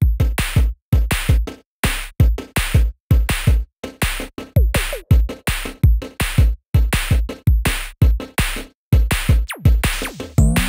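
Electronic background music with a driving drum-machine beat and heavy bass hits, about three to four beats a second.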